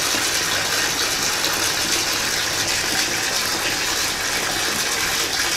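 Bathtub faucet running, water pouring into a filling tub in a steady rush.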